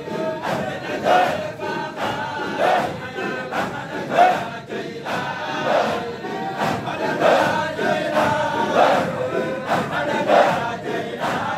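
A large crowd of men chanting dhikr together in a rhythmic, repeated pulse, many voices at once.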